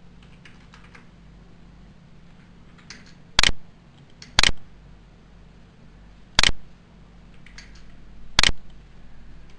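Clicking at a computer: four loud sharp clicks spaced one to two seconds apart, with fainter clicks between them, over a faint steady low hum.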